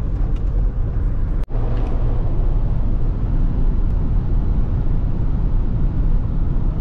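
Steady road and engine noise inside a car's cabin cruising at highway speed, mostly a low tyre rumble. A brief dropout about a second and a half in.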